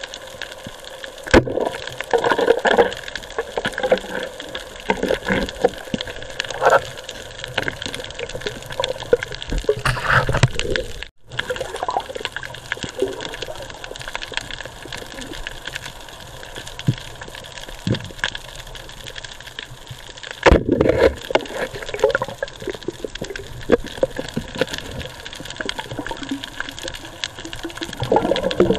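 Underwater sound picked up by a camera in its waterproof housing: a steady wash of water noise with several louder, irregular gurgling bursts of bubbles and water movement. About eleven seconds in, the sound drops out for a moment and comes back.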